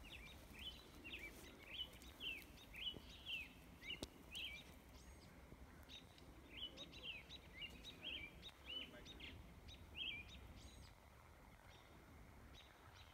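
Faint bird chirping: a series of short, high chirps about two a second, with a brief pause partway through, dying away near the end.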